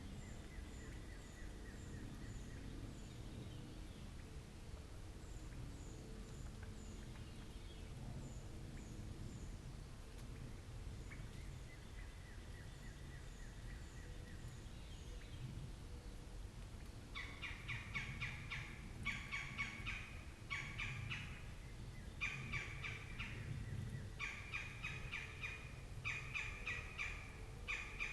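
Wild birds calling, with faint thin high notes in short runs and a long, steady whistled note twice. Past the middle a louder bird starts a rapid rattling call in bursts about a second long, repeated every second or two.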